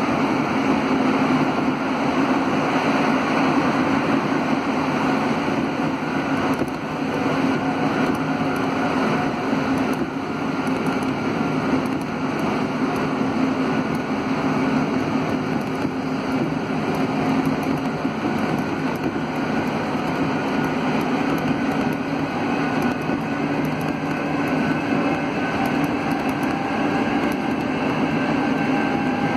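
Alsthom NS 74 rubber-tyred metro train heard from inside a car while running: steady rolling noise of the pneumatic tyres with a steady hum. In the second half a whine rises slowly in pitch.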